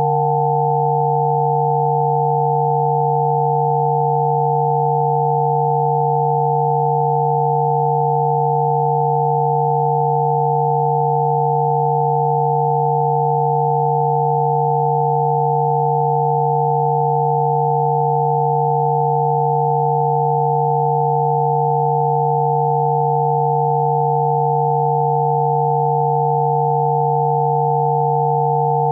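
Spooky2 Rife frequency tones: a low pure electronic tone and a few higher ones sounding together as a steady, unchanging chord. This is a Rife frequency set played for sneezing.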